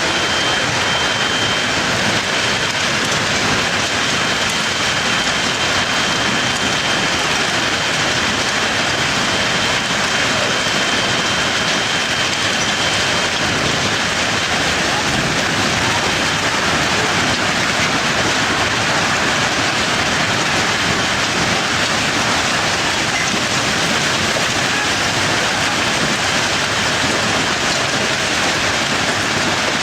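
Hailstorm with heavy rain: a dense, steady hiss of hail and rain pelting down without a break.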